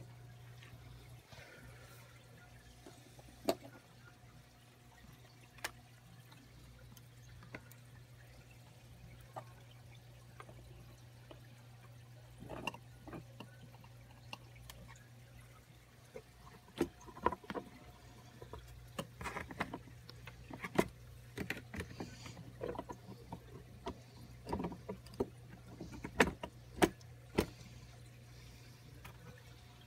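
A steady low hum with scattered sharp clicks and light knocks. The clicks come more often through the second half, some in quick clusters.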